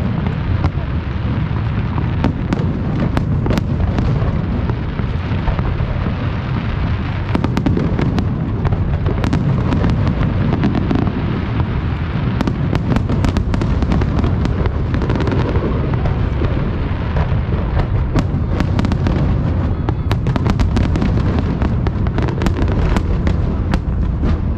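Large aerial fireworks display: a continuous barrage of shells bursting in deep booms that run into one another, with many sharp crackles and pops over them.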